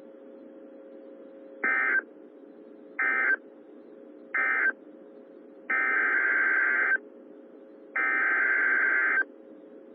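Emergency Alert System SAME digital data bursts: three short buzzy bursts (the end-of-message code), then three longer ones (the header of the next alert), each repeated three times with pauses between. Underneath runs a faint steady hum and hiss of the radio channel.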